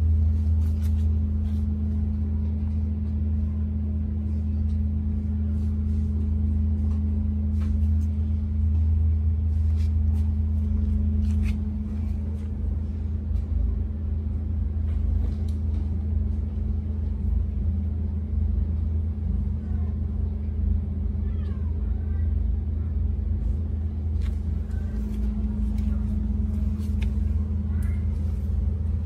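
Steady low mechanical hum with scattered faint clicks.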